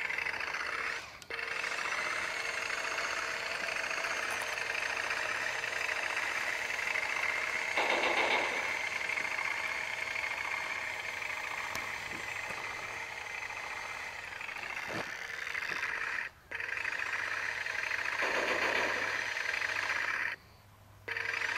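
Radio-controlled toy M1A1 Abrams tank driving on asphalt: a steady mechanical whir and rattle from its drive and tracks. There are two short louder bursts and a few brief cut-outs.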